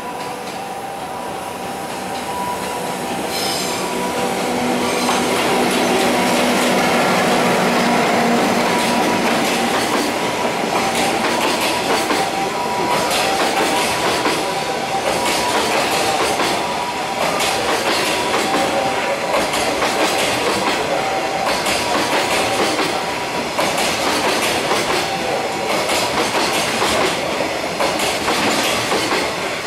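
A JR Freight container train, hauled by an EF64 electric locomotive, passing close by: the sound grows louder over the first few seconds, then a long rumble of Koki container wagons with wheels clicking over the rail joints and steady thin squealing tones.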